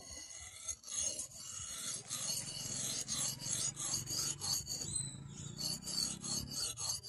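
Edge of a hand-forged mini axe head being sharpened on a flat whetstone: steel scraping on stone in quick, repeated back-and-forth strokes.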